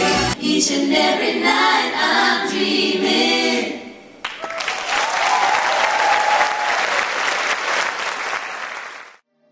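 Choral singing over music stops about four seconds in, and audience applause follows for about five seconds before cutting off abruptly.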